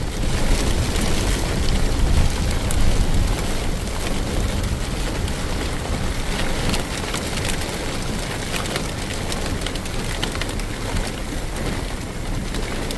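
Heavy rain pouring steadily, with a low wind rumble on the microphone and a scatter of drop ticks; a little louder in the first few seconds.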